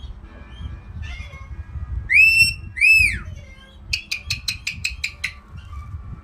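Pet caique parrot calling: a few soft chirps, then two loud whistles about two seconds in, each rising and falling in pitch, followed by a quick run of about ten short clicking chirps.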